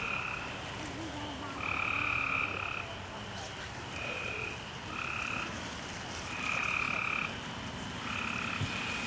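Repeated animal calls, about seven, each held at one steady pitch for up to a second, coming at irregular intervals over a steady background hiss.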